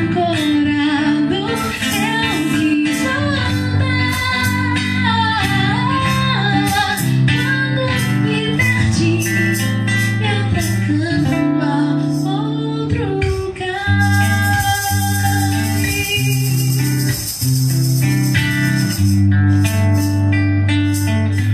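A woman sings a song in Portuguese into a microphone, accompanied by a plucked guitar with steady low notes.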